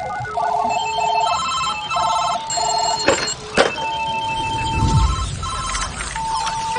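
Many telephones ringing at once, their pulsed electronic trilling rings overlapping at different pitches in a constant clamour of incoming calls, with two brief sharp sounds a little past halfway.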